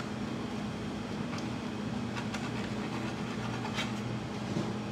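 Steady low machine hum, with a few faint soft scrapes as a knife saws horizontally through a chiffon cake.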